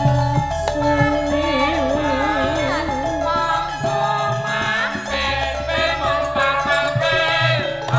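Javanese langgam Sragenan band music: a hand drum, steady bass notes and a melody line that wavers with a wide vibrato.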